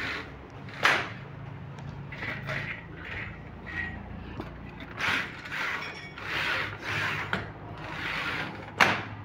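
Pleated mosquito-net sliding door drawn shut and slid open again along its track: several short rustling swishes of the pleated mesh and its runners, with a sharp click about a second in and another, louder, near the end.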